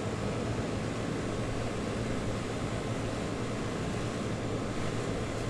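Walk-in freezer's refrigeration condensing unit running: a steady fan noise with a constant low hum.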